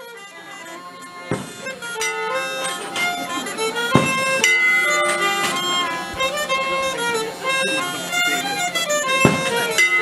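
Traditional folk tune on fiddle and Northumbrian smallpipes, with the pipes' steady drone under the melody. The music fades in over the first second or two, and a few sharp knocks sound over it.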